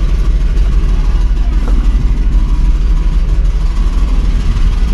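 Wind buffeting the microphone: a loud, steady low rumble that flutters in strength.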